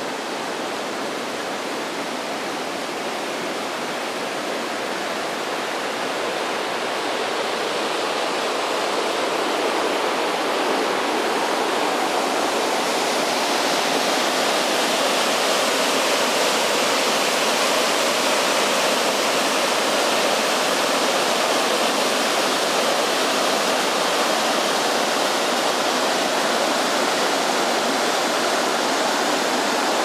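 Eagle Creek rushing through a narrow canyon and over a small waterfall: a steady whitewater rush that grows louder and brighter over the first dozen seconds, then holds.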